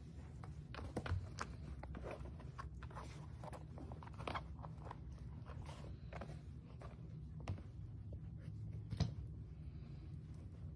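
Dachshund puppies mouthing and tugging at a canvas slip-on shoe: faint scuffing, rustling and small chewing clicks, with a few sharper clicks, over a steady low hum.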